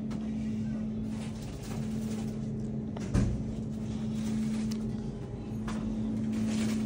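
Steady low hum of a shop's refrigerated display cases, with a single thump about three seconds in.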